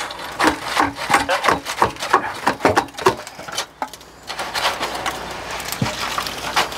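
Irregular wooden knocks and clunks as timber trench-shuttering struts are worked loose and hooked out with a bar, giving way about four seconds in to steadier scraping of wood on wood and gravel.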